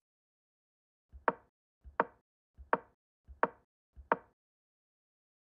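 Chess-move sound effect: five wooden clicks of pieces set down on a board, about 0.7 s apart, each a soft tap followed by a sharper knock.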